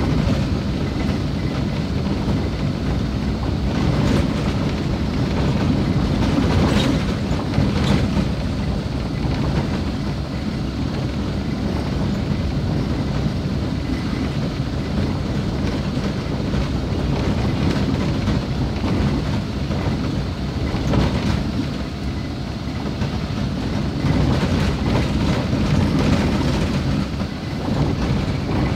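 Steady rumble and rattle of a vehicle travelling over a rough, unpaved gravel road, with a few sharper jolts about seven, eight and twenty-one seconds in.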